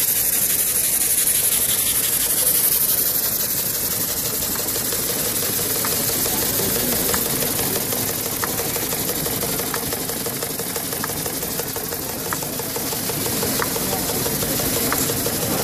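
Small working model engines running with a steady hiss, and light ticks about every second and a half in the second half.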